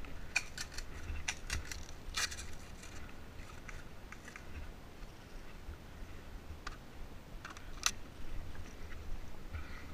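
Scattered sharp clicks and snaps, several close together in the first two seconds and a few more later, over a steady low rumble of wind on the microphone.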